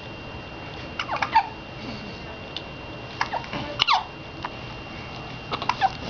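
A baby's short, high-pitched squeaky vocal sounds in three brief bursts about two seconds apart, each made of a few quick sounds that fall in pitch.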